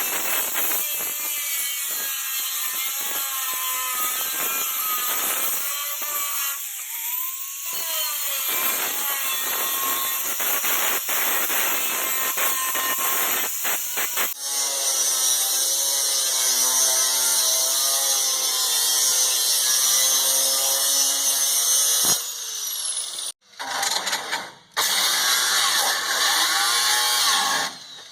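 Electric power tool cutting into the rusty body metal of a truck, its motor whining and its pitch sliding up and down as the load changes. The sound breaks off abruptly a few times in the second half.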